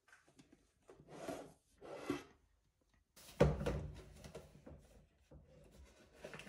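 Something being handled: two short rubbing or sliding sounds, then a solid thud about three and a half seconds in that fades away.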